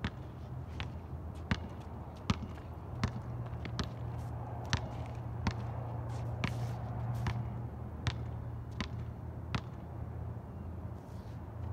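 A basketball being dribbled on an outdoor asphalt court, a sharp knock roughly every three-quarters of a second, over a steady low hum.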